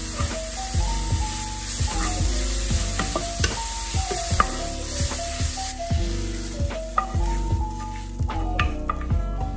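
Food sizzling in a frying pan, with a utensil stirring and clicking against the pan. The sizzle drops away a little over halfway through. Gentle instrumental background music plays throughout.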